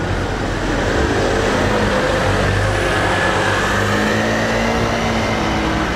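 A motor scooter and a small flatbed truck driving past on a narrow street, a steady engine sound whose pitch rises a little and then eases off as they pass.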